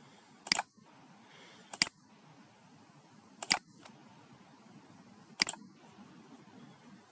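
Computer mouse clicks: four sharp clicks one and a half to two seconds apart, several heard as a quick double snap of the button going down and up, over faint room noise.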